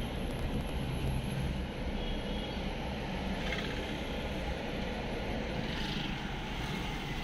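Steady drone of a car driving along a road, engine and tyre noise heard from inside the cabin.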